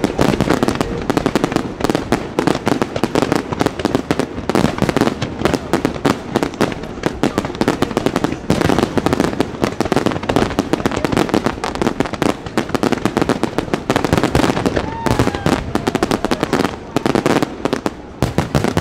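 An aerial fireworks barrage: a dense, unbroken run of cracks and bangs that overlap with no gaps, easing slightly near the end.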